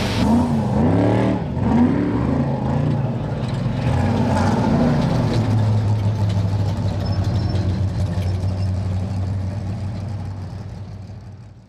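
Spec trophy truck's V8 engine revving up and down hard for several seconds, then holding a steady note that fades out near the end.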